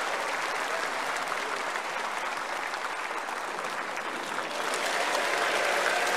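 Large audience applauding, starting abruptly and swelling louder about two-thirds of the way through.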